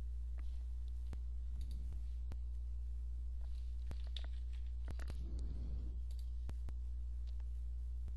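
Scattered sharp clicks of a computer mouse and keyboard, about a dozen spread through, with two short stretches of rustling handling noise, over a steady low electrical hum.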